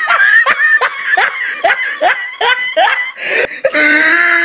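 High-pitched laughter: a string of quick 'ha' sounds, each rising in pitch, about three a second, then one long drawn-out note near the end.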